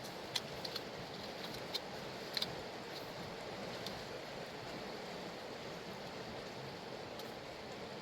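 Mountain river water rushing steadily, with a few short sharp clicks in the first four seconds.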